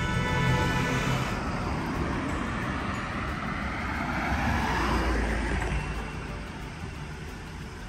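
Road traffic: vehicle engine rumble and tyre noise. The noise swells about four to five seconds in and then eases off, and a steady pitched tone is heard for the first second and a half.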